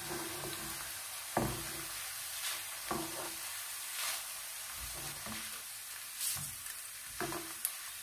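Dried leftover rice deep-frying in hot oil with a steady sizzle, stirred and lifted with a perforated metal skimmer that knocks and scrapes against the pan several times.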